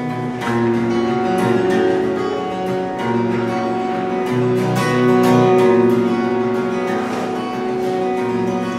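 Solo acoustic guitar playing a song's instrumental introduction before the vocals come in, chords picked and strummed in a steady rhythm and left ringing.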